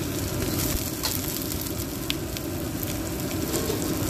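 Soaked rice sizzling steadily in hot oil in a wok, with a few faint ticks.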